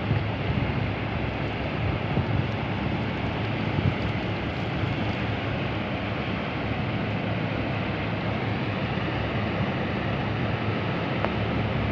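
Steady low drone of a boat's engine under way on the river, mixed with the rush of wind and water.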